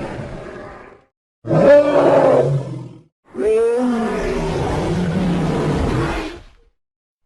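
Anchiceratops dinosaur roar sound effects played one after another: the tail of one call fades out, a short roar starts about a second and a half in, and a longer roar from about three seconds in fades away near the end.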